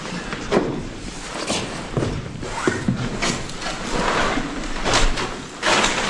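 Irregular knocks, thumps and scuffing noises with rustling, from someone moving and clambering over rubble and debris.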